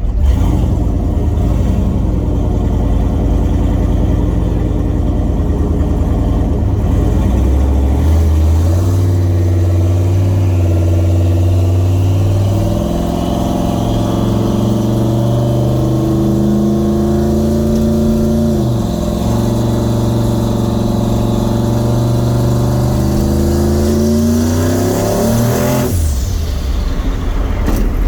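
Turbocharged truck engine running under throttle, fitted with a Garrett G42-1200 turbo on its first start-up run. Its pitch climbs in steps, drops sharply about two-thirds of the way through, climbs again, then the sound changes abruptly near the end.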